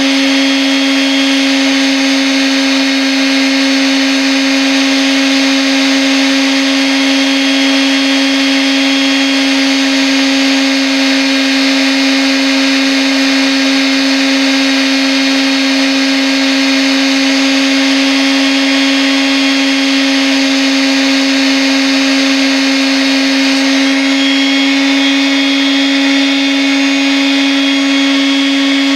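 Electric sander running steadily, a constant motor hum over an even hiss.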